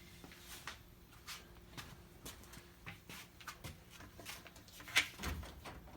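Faint handling noises: light rustles and small ticks as things are moved about, with a sharper click and a soft knock about five seconds in.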